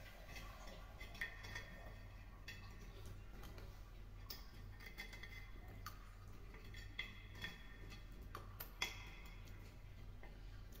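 Faint, irregular clicks and scrapes of a spoon against a pot of curd as the last of it is eaten, over a steady low hum.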